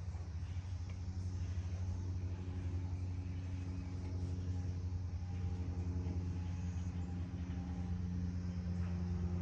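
A steady low mechanical hum, with faint steady higher tones above it, as from a motor or engine running.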